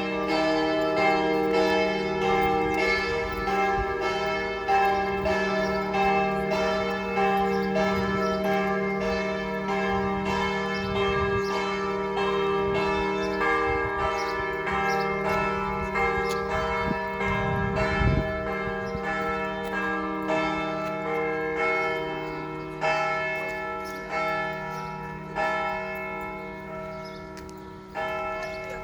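Church bells pealing: several bells struck again and again in overlapping succession, their tones humming on between strokes. Over the last several seconds the ringing dies down, with a few separate strokes standing out as it fades.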